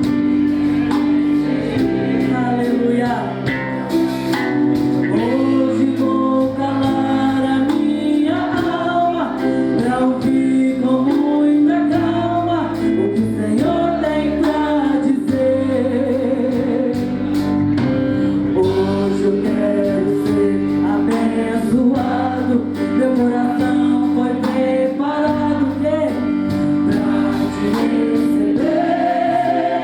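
Gospel worship song sung with instrumental accompaniment, a sustained note held underneath the changing vocal melody.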